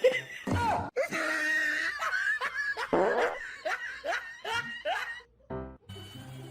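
People laughing hard in bursts, with a short break a little past five seconds in.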